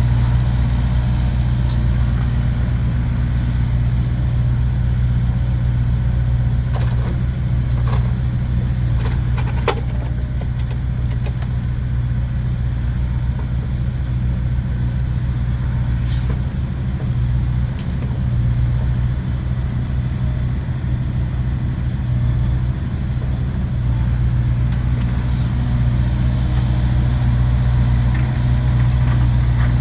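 An engine idling steadily with a deep, even hum, and a few short knocks and clicks about seven to ten seconds in.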